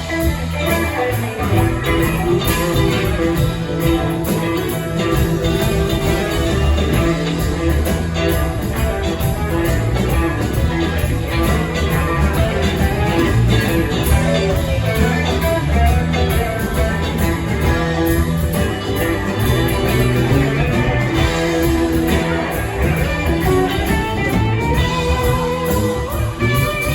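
Live rock band playing an instrumental passage: guitar lines to the fore over a steady bass and drums.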